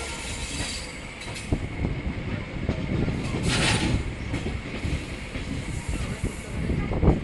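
Train running over the rails: steady rumble with irregular wheel knocks, a brief high squeal about three and a half seconds in, and heavier clunks near the end.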